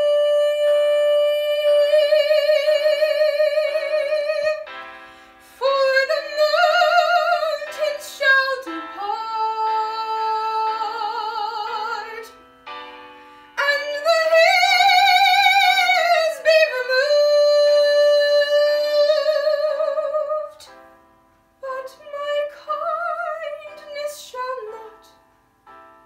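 A solo female classical voice sings in operatic style, with long held notes and a wide vibrato. The phrases are broken by short pauses for breath.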